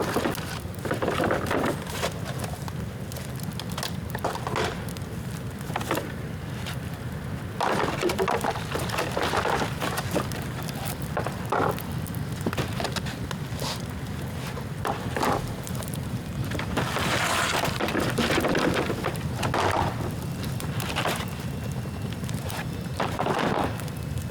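Bamboo bonfire burning: irregular crackles and sharp pops with swells of flame noise, over a steady low wind rumble on the microphone.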